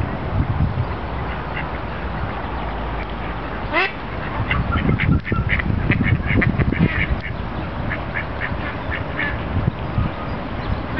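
Mallards quacking: a rapid run of short, repeated quacks that starts about four seconds in and goes on for several seconds.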